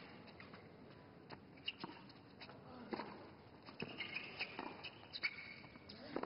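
Tennis rally on a hard court: a series of sharp pops from racquets striking the ball and the ball bouncing, with brief squeaks of players' shoes on the court surface.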